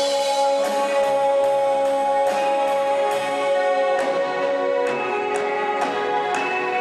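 Live band playing a Vietnamese bolero song near its end: drum kit keeping a steady beat under guitar and keyboard, with a long note held over the top.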